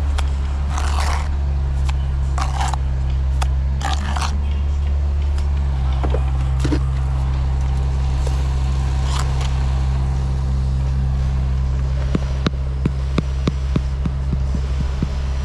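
A steady low motor drone, with a few short scrapes, likely a trowel working brick and mortar, in the first half and a quick run of light clicks and taps near the end.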